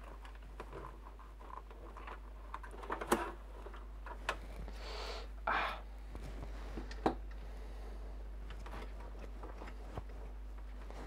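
Scattered small clicks and taps, with a short scrape about five seconds in, from hands working on computer hardware while a PC is being taken apart; the sharpest click comes about three seconds in.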